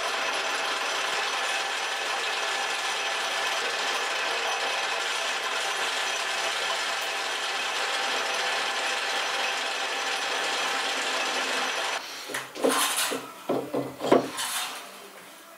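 Metal lathe running steadily while turning a metal shaft: a dense, even machining noise with faint steady tones. About twelve seconds in it stops abruptly, and a few knocks and clinks follow as a metal gear housing is handled against the lathe chuck.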